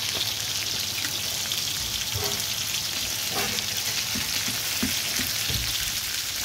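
Chopped onions and red peppers sizzling steadily in oil in a frying pan. A spatula stirs them, with a few soft scrapes and knocks in the middle.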